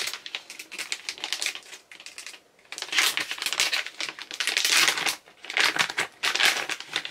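Shiny plastic pouch being pulled open and crinkled by hand, in irregular rustling bursts, with a short pause just after two seconds and the loudest crinkling from about three to five seconds in.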